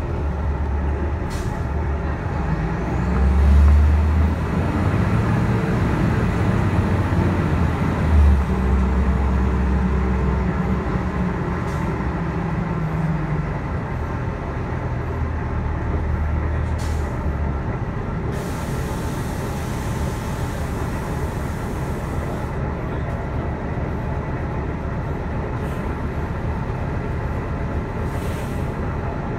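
Interior of a city transit bus under way: the bus engine and drivetrain run low and steady, swelling and rising in pitch early on as it pulls, with occasional rattling clicks. About two-thirds of the way through comes a few seconds of air hiss, typical of the air brakes.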